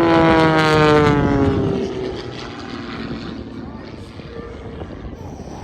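Propeller airplane flying past, its engine note dropping in pitch as it goes by and fading away about two seconds in.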